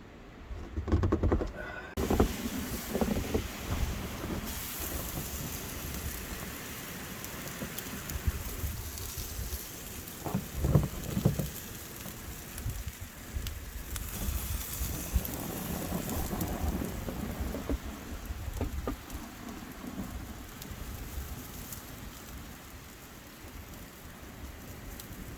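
Strong gusty blizzard wind, a steady rushing hiss with irregular low rumbles as gusts buffet the microphone; the hiss starts suddenly about two seconds in.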